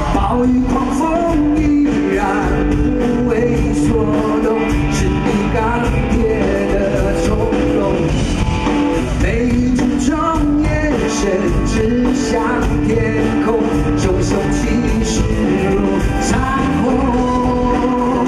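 Live rock band performance: a male lead singer sings over electric guitar and keyboards, with a steady full band underneath.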